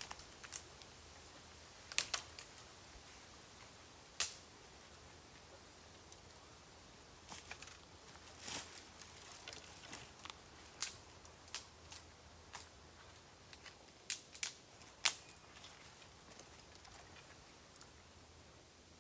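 Bamboo burning in an open fire: sparse, irregular sharp crackles and pops, about a dozen of them, the loudest a little past the middle, over a low steady background.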